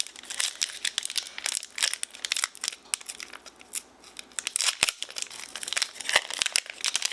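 A Pokémon trading card booster pack's foil wrapper crinkling and tearing as it is opened by hand, in many quick irregular crackles.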